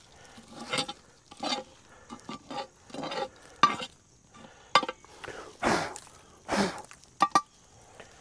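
Hot coals being scraped and knocked off a cast iron Dutch oven: a string of irregular scrapes and short metallic clinks.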